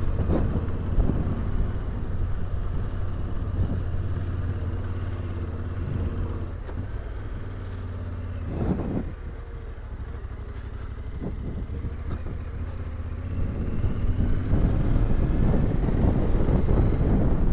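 Yamaha Ténéré 700's parallel-twin engine running under way on a gravel track, with wind and tyre noise over it. It drops quieter for a few seconds around the middle, then grows louder and rougher from about two-thirds of the way in.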